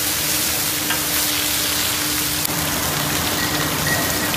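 Hilsa fish steaks sizzling steadily as they fry in shallow oil on a large flat griddle, with a faint steady hum underneath.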